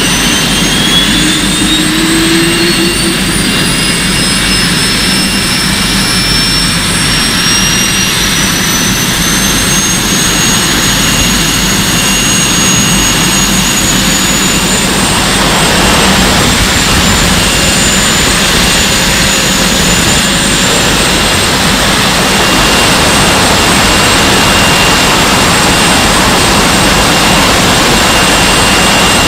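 Jet airliner engines spooling up to takeoff power: a loud steady roar with a high whine that rises in pitch over the first several seconds, the roar growing fuller about halfway through.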